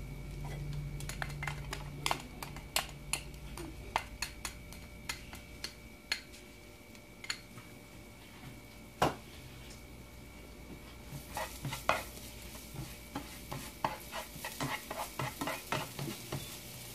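Minced garlic frying in a little hot vegetable oil in a nonstick skillet: scattered pops and crackles, with one sharper knock about nine seconds in. The crackling grows denser over the last few seconds as tongs move the garlic around the pan.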